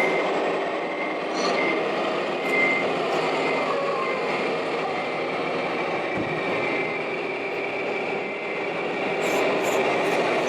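Radio-controlled model trucks and construction machines running on an indoor course: a steady mechanical hum and rumble with a faint, on-and-off high whine, and a few light clicks near the end.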